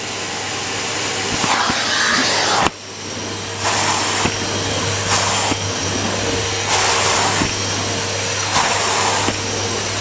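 Canister vacuum cleaner running steadily with a low hum and a high whine, its floor head pushed back and forth across the floor. The rushing suction sound swells with each stroke, about every second and a half, with a brief dip near 3 s and a few light knocks.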